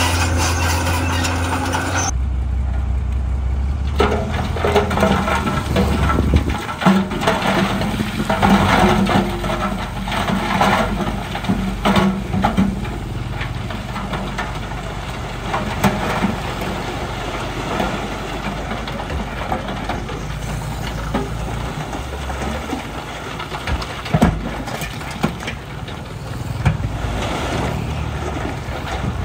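Heavy diesel earthmoving machinery running, with scattered knocks and scraping of rock over the engine sound. The sound changes abruptly about two seconds in.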